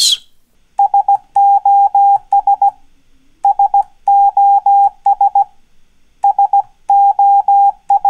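Morse code SOS sent three times as a steady beeping tone: three short, three long and three short beeps each time, with a clear gap between the S, the O and the S. This is the letter-by-letter spacing that is not the correct way to send the distress signal, which should run as one unbroken character.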